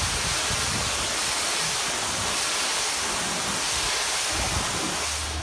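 Pressure washer jet spraying water against a boat hull: a steady, loud hiss of spray.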